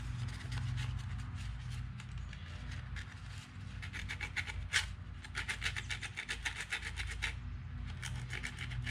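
Sandpaper scraping back and forth over the metal brush-contact surface of a Honda Recon 250 ATV starter motor, taking off corrosion. The quick, rapid strokes come in runs, busiest from about four to seven seconds in and again near the end.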